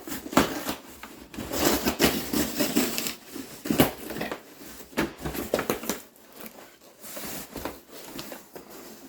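Polystyrene packing peanuts rustling and squeaking as hands dig through them in a cardboard shipping box, in irregular bursts with a few sharper knocks, easing off in the last few seconds.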